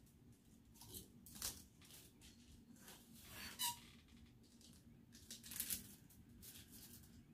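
Clothes and hangers being handled in a closet: a few brief, faint rustles and scrapes, the loudest about three and a half seconds in.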